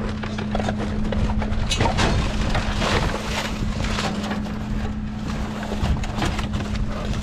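A vehicle engine running steadily with a low hum, with scattered knocks and rattles over it.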